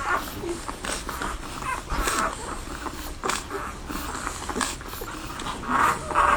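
Newborn French Bulldog puppies suckling: irregular wet clicks and smacks of sucking at the teats, with short breathy noises in between.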